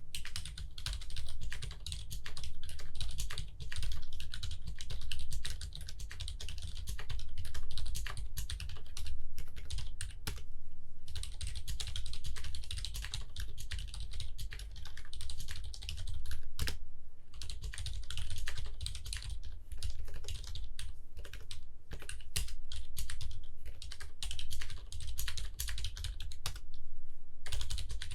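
Typing on a custom 40% keyboard with a cardboard box case, Cherry MX Silent Red switches and clear ABS keycaps: a fast, continuous run of muted keystrokes, with short pauses about eleven seconds in and near the end.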